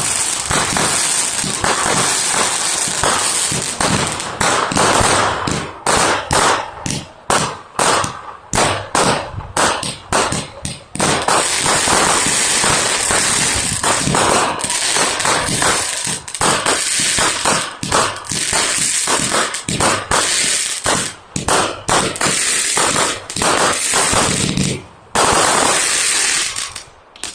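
Fireworks or firecrackers going off in a fast, irregular string of sharp bangs and crackles over a steady hiss. It lasts well over twenty seconds, with a short gap near the end, then stops abruptly.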